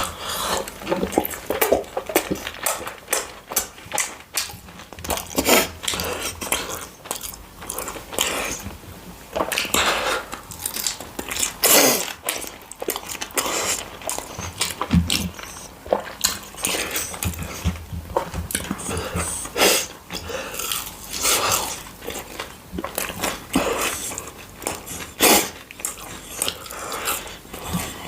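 A person eating close to the microphone: irregular crunching bites and chewing, with sharp crackles coming in clusters throughout.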